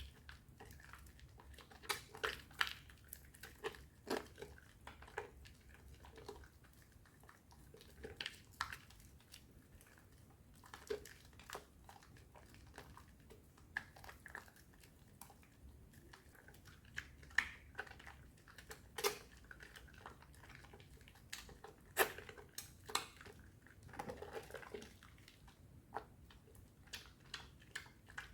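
A bar of strawberry soap with powder on it being lathered by hand into thick foam: soft, irregular wet squishes, crackles and clicks of foam and fingers working the bar.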